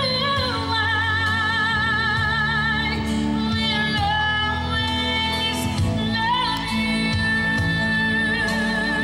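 A woman sings long held notes with a strong vibrato into a microphone over amplified instrumental accompaniment with steady low bass notes.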